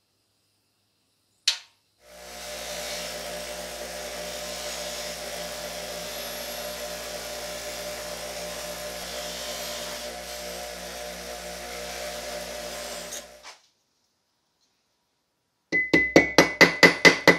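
Bench buffer motor running steadily for about eleven seconds while aluminum is buffed on its cloth wheel, then switched off. Near the end, rapid hammer blows, about five a second with a ringing tone, peening a brass rivet held in a steel vise.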